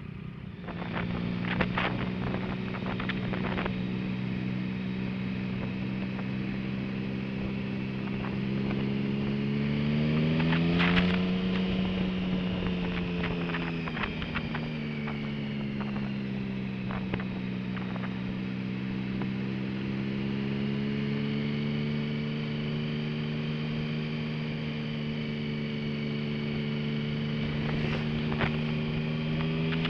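Motorcycle engine running steadily on the move. Its pitch rises about ten seconds in and falls back a few seconds later to an even cruise. There is wind noise over the microphone and a few short clicks.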